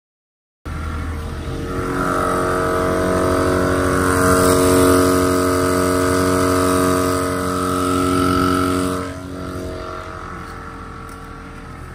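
Portable air compressor running steadily, pumping air into an off-road tyre to reseat its unseated bead. It starts abruptly, holds one steady pitch, and about nine seconds in drops noticeably quieter.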